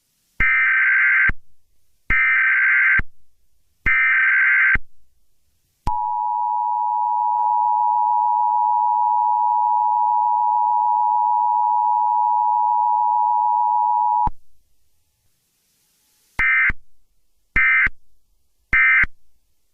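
Emergency Alert System test tones: three screechy digital header bursts of about a second each, then the steady two-tone attention signal held for about eight seconds. It ends with three short data bursts.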